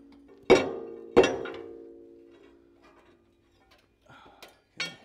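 A long steel wrecking bar rammed against the pin of a John Deere 85G excavator's quick coupler, driving the pin out: two loud metal clanks well under a second apart, each leaving a ringing tone that dies away over a couple of seconds, then a few lighter knocks near the end.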